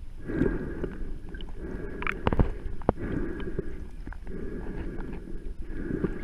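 Muffled underwater water noise heard through a submerged camera: low sloshing that surges and fades about once a second, with a few sharp clicks about two to three seconds in.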